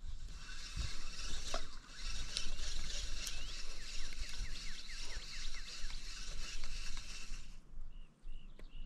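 Spinning reel being wound to retrieve a cast lure: a steady whirr of the gears with a quick run of ticks, which stops suddenly near the end. Wind rumbles on the microphone throughout.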